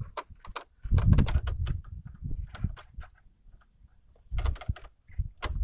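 Irregular metallic clicks and taps from a battery quick-disconnect being handled and worked on a car battery terminal, with a few duller knocks among them.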